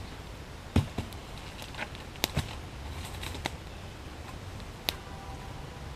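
Split hickory log being pulled apart by hand, giving a few separate sharp cracks and snaps as the last wood fibres tear and it comes apart into two bow staves.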